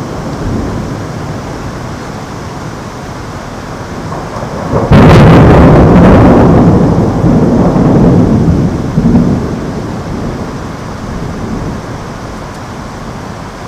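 A close thunderclap: a sudden sharp crack about five seconds in, then a rumble that rolls on for four or five seconds and fades, over a steady hiss of rain.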